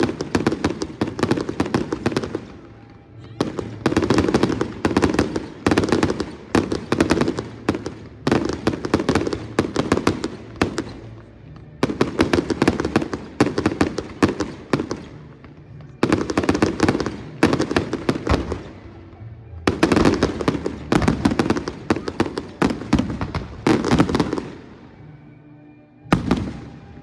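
Fireworks display: volleys of rapid sharp bangs and crackles, each lasting two to four seconds, about seven in all with short gaps between them.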